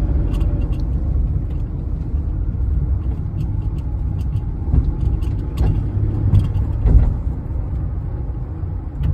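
Small Hyundai car being driven along a narrow road, heard from inside the cabin: a steady low engine and road rumble, with a few short knocks and rattles around the middle.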